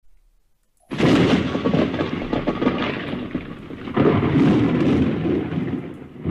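Loud thunderclap sound effect: a sudden crash of thunder about a second in that crackles and rumbles as it fades, then a second crack and rumble about four seconds in.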